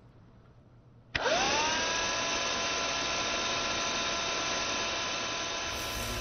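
Handheld vacuum cleaner switching on about a second in: its motor whine rises quickly in pitch as it spins up, then runs steadily with a rushing hiss.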